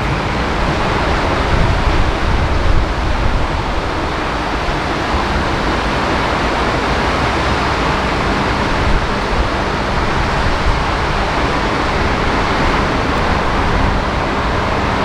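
Heavy rain pouring down in a steady, loud rush.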